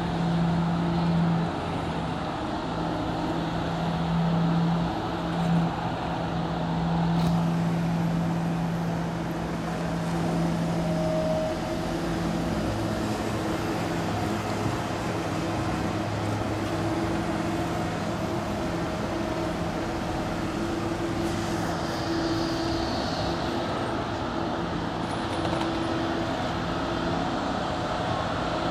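Diesel engine of a long-reach hydraulic excavator running while it works, a steady drone whose pitch drops slightly about twelve seconds in.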